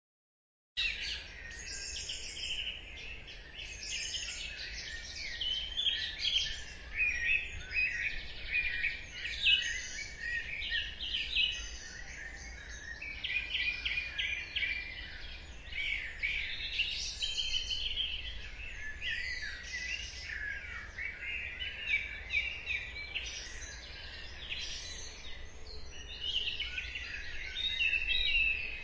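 Dawn chorus: many birds singing at once, a dense overlapping mix of warbles, trills and chirps, over a faint low rumble. It starts abruptly about a second in.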